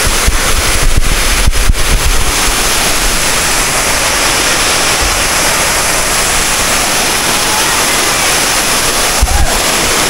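Waterfall rushing, a loud steady roar of falling water, with a few low bumps on the microphone in the first two seconds and again near the end.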